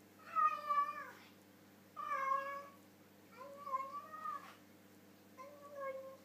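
Domestic cat meowing with its mouth full while eating from its bowl: four drawn-out calls, each about a second long.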